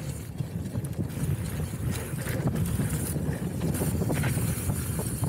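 Wind buffeting the action camera's microphone while a Trek Roscoe 8 hardtail mountain bike descends a rough trail, a steady low rumble with frequent sharp clicks and knocks of the bike rattling over bumps.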